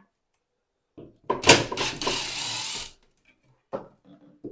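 Power drill running for about a second and a half, backing out a screw from the temporary wooden support strip. A few light knocks of wood follow near the end.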